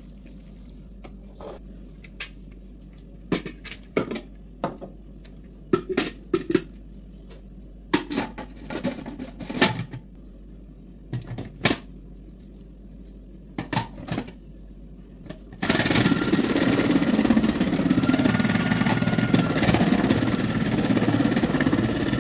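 A series of sharp clicks and knocks, then, about two-thirds of the way in, an electric food processor starts and runs loudly and steadily for about six seconds, shredding a vegetable through its disc.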